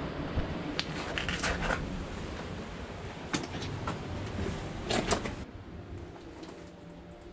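Shoes knocking and scraping on rock and loose stones as a person scrambles down into a cave, in several separate steps. Under them is a low rumble that drops away over the last couple of seconds.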